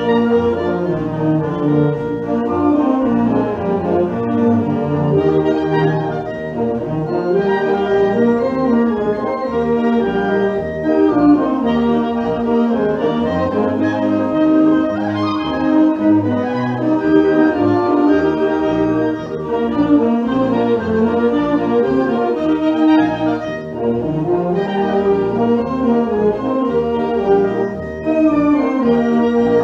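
Wind band playing a symphonic march, with saxophones, clarinets, flutes and brass sounding together.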